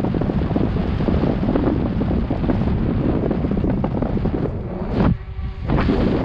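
Wind buffeting a GoPro Hero 7 Black's microphone as a CTM Scroll 2018 mountain bike rides fast over rough trail, with constant rattling and knocking from the bike. About five seconds in comes a sharp knock, then a brief quieter moment before the rattling resumes.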